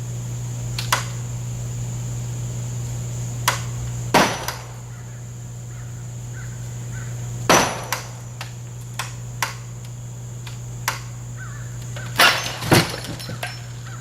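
Axe blows striking a swing set: a series of irregular, sharp single hits. The heaviest land about four, seven and a half, and twelve seconds in.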